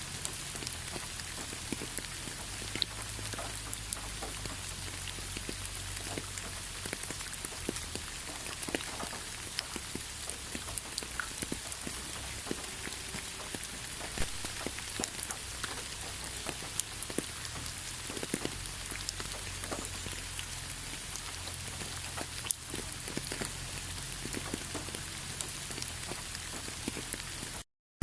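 Steady rain falling, an even hiss with many individual drops ticking and pattering on surfaces, and a low rumble underneath.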